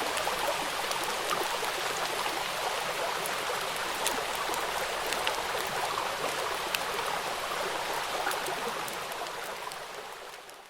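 Steady rain: a dense hiss with individual drops ticking through it, fading out over the last second or two.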